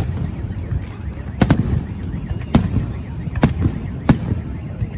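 Aerial fireworks shells bursting: a series of sharp bangs about every second, one close pair among them, over a continuous low rumble of more distant bursts.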